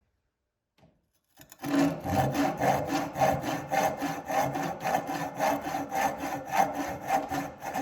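Hand-cut sawing: a restored keyhole saw cutting through wood in quick, even back-and-forth strokes, about three a second, starting about a second and a half in.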